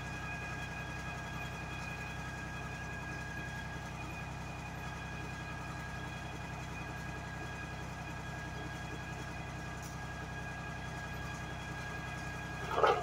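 US Jetting 4018 sewer jetter's engine and high-pressure pump running steadily, a low hum with a constant high whine over it. A short, louder burst comes at the very end.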